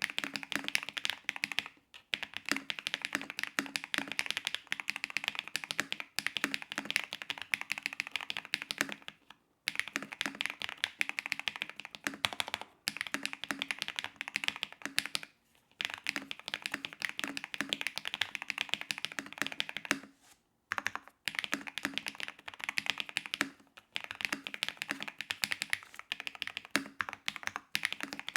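Typing on a mechanical keyboard fitted with Keygeek Mirror Lake V2 factory-lubed linear switches: a fast, dense run of keystrokes broken by short pauses every few seconds.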